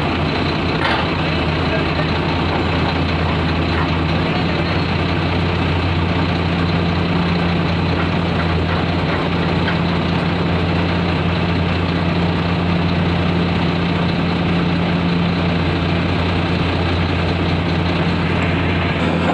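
Heavy diesel engines of a Komatsu PC210 excavator and an Eicher tipper truck running steadily at constant speed, with a deep, even hum.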